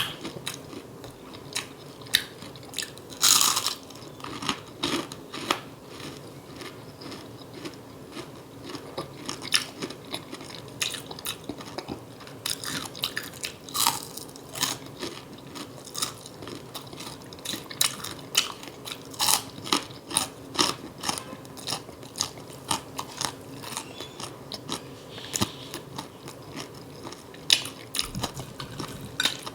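Close-miked eating sounds: chewing and wet lip smacking, with crisp crunching bites of fried food, in many short irregular clicks.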